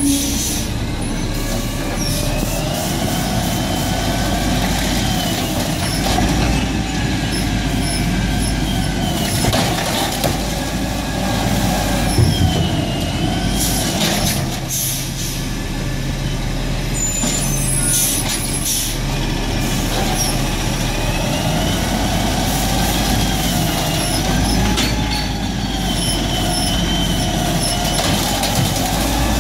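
Peterbilt 320 garbage truck with an Amrep Octo automated side-loader at work: the engine revs up and down repeatedly to drive the hydraulic arm as it grabs, lifts and tips recycling carts into the hopper, with several sharp air-brake hisses as the truck stops and pulls forward between carts.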